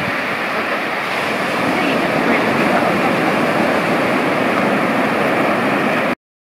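Sea surf breaking and washing up the shallows, a steady rushing of water. It cuts out to silence for a moment just before the end.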